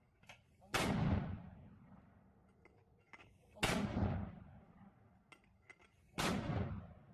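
Three loud blasts of heavy weapons fire, about three seconds apart, each dying away in a long echo.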